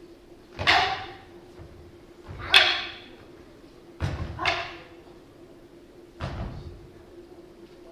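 Long wooden fighting staffs clacking together in a bō-no-te staff-fighting bout, five sharp strikes with a short echo, two of them in quick succession about halfway through.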